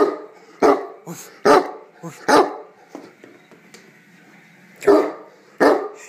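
Great Dane barking: four barks in quick succession, a pause of about two seconds, then two more barks.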